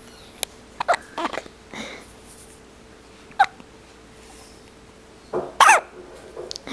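Hiccups: a handful of short, sharp hiccups spaced a second or two apart, the loudest near the end with a brief squeaky voiced catch.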